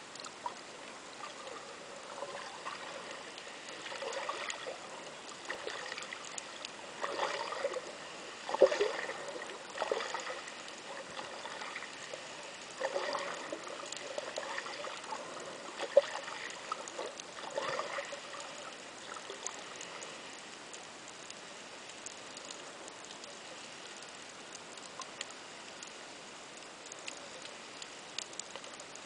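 Water and bubble noise heard through an underwater camera: a steady muffled hiss with scattered small clicks, and louder bursts of bubbling and churning water from swimmers kicking between about 4 and 18 seconds in.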